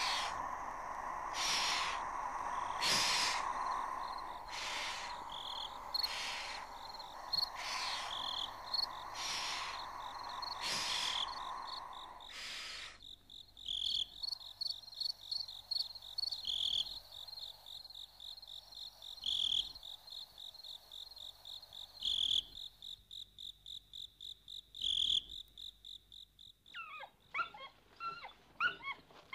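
Rainforest insect chorus: a high, rapidly pulsing insect trill, with a louder broad chirp repeating about every second and a half over a steady hiss for the first half. After that the trill carries on alone, with a stronger chirp every few seconds, and near the end a run of quick, high, rising calls begins.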